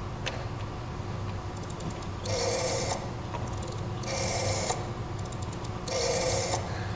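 Telephone sound effect over the theatre speakers: a click, then faint ticking and three short mechanical buzzing bursts about two seconds apart.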